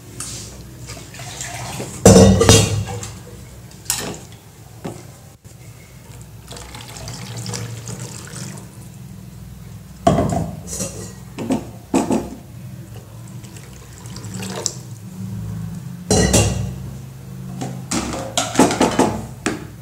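Wooden spatula stirring thin tomato soup in a steel pan: liquid sloshing, with the spatula scraping and knocking against the pan. It comes in short louder bursts a couple of seconds in, around the middle, and again near the end.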